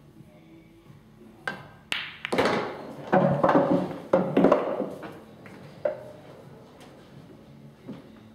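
Pool shot: the cue tip taps the cue ball, which knocks sharply into an object ball, and the potted ball drops and rattles away through the table for a couple of seconds. A few softer knocks follow.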